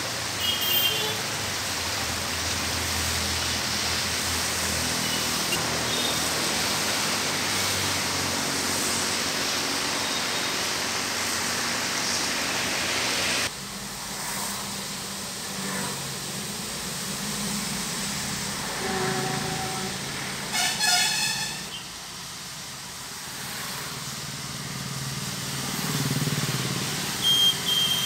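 Floodwater rushing over a paved street, a steady loud hiss that cuts off suddenly about halfway. Then a quieter wet-road sound with passing traffic and a vehicle horn honking about three-quarters of the way through.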